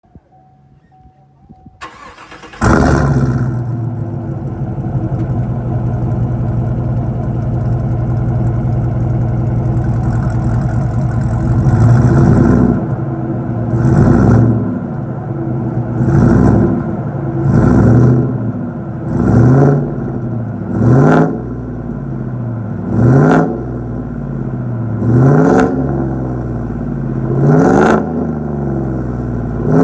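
GMC Sierra pickup's engine cranking and catching a couple of seconds in, idling steadily for several seconds through its aftermarket exhaust, then revved in about ten short blips, each rising and dropping back to idle.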